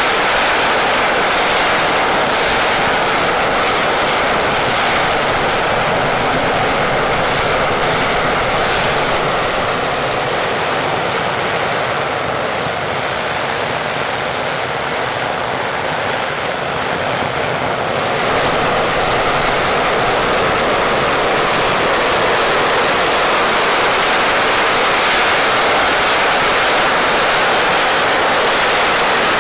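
English Electric Lightning's two stacked Rolls-Royce Avon turbojets running with the jet standing still, a loud steady rushing jet noise. It eases off slightly for a few seconds in the middle.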